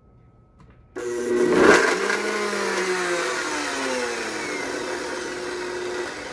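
Countertop blender switched on about a second in, packed with frozen mango. Its pitch sinks steadily as the motor slows under the load, the sign that the fruit is frozen too hard to blend.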